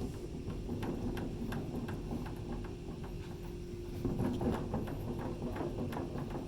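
Hands fitting a rubber bumper onto a sneeze guard: a run of light, irregular clicks and taps, a little louder about four seconds in, over a steady hum.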